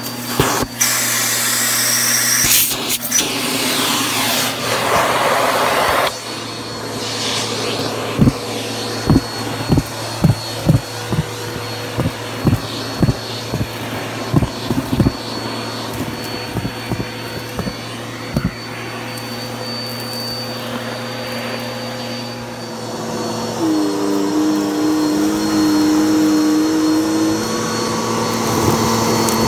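Vacuum cleaner running steadily while sucking up pom-poms, yarn and shredded paper from a carpet through a hose attachment. A loud rush of suction for the first few seconds is followed by a long run of sharp crunchy clicks as debris rattles up the hose. A new steady whine comes in past the middle.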